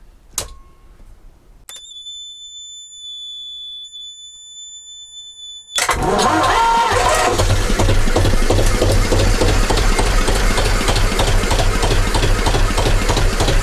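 A click, then a steady high-pitched electronic tone for about four seconds. About six seconds in, the tone stops and a 68-year-old Petter McLaren B2 two-cylinder diesel engine fires abruptly and settles into steady running with a strong low beat, its first run on fresh SAE 30 oil.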